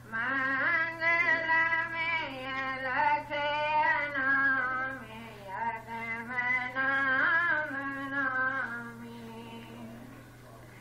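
Solo voice singing a devotional shabad in long held notes with slides between pitches, over a steady low hum. The singing pauses about nine seconds in.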